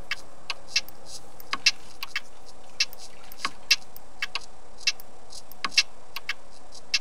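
Sharp, irregular clicks, about two or three a second, over a steady hiss.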